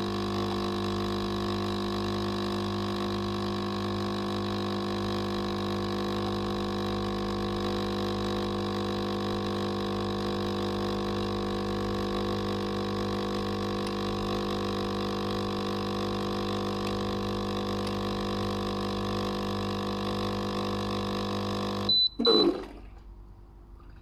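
Capsule coffee machine's pump running with a steady hum while brewing a Dolce Gusto capsule into the cup; it cuts off abruptly about two seconds before the end as the brew cycle finishes, followed by a brief loud knock.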